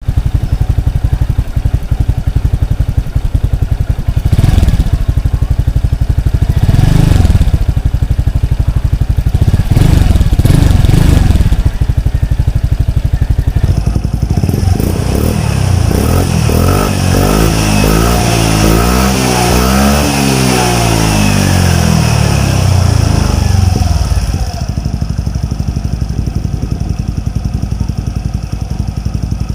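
Suzuki Skydrive Sport scooter's single-cylinder four-stroke engine running through an EXOS X6 aftermarket racing exhaust. It idles, is blipped briefly about 4, 7 and 10 seconds in, then revs up and back down over about ten seconds before settling back to idle.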